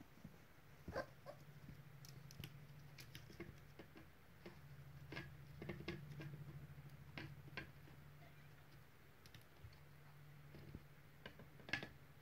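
Faint, scattered clicks and taps of a West Highland terrier puppy's claws pawing at mirror glass, over a low steady hum.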